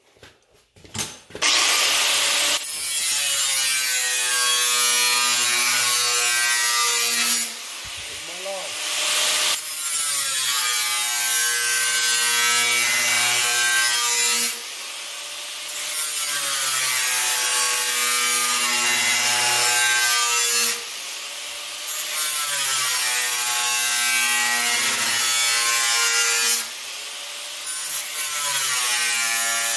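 Angle grinder with a cutting wheel cutting a curved line in new sheet-steel patch panel, the wheel skimming across the top of the metal along the scribed line rather than plunging straight down. It starts about a second and a half in and runs with a whine that wavers in pitch under load, the cutting noise dropping back briefly four times.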